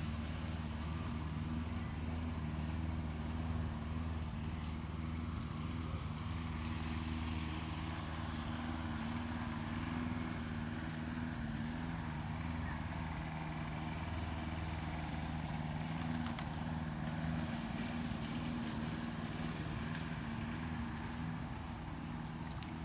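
Steady low mechanical hum with several pitched tones, like a motor running.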